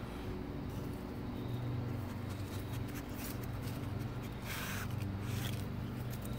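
Pit bull sniffing and snuffling with her nose in the grass, a few short breathy bursts, the clearest about four and a half seconds in, over a steady low hum.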